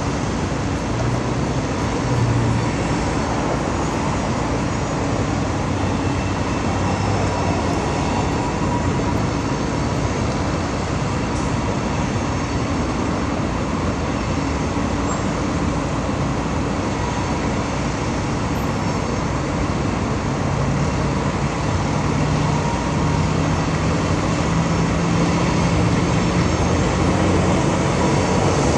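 Steady rumble of road traffic from a busy multi-lane highway, with low engine hums from passing vehicles swelling and fading.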